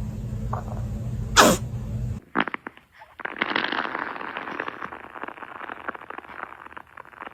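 A baby's farts: one short burst about a second and a half in over a low hum, then after a short break a long crackling, sputtering fart of about four seconds.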